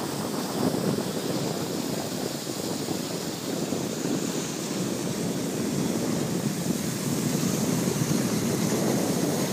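Skis sliding over packed snow, a steady rushing noise, with wind on the microphone.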